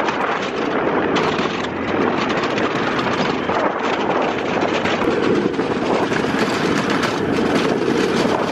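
Quad bike (ATV) driving along a rough dirt track: the engine runs steadily under a constant clatter of small knocks and rattles as it goes over the bumps.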